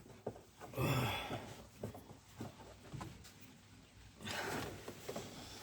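A man breathing out heavily twice, about a second in and again near the end, while straining to work an auxiliary belt onto the engine pulleys, with a few light clicks and knocks in between.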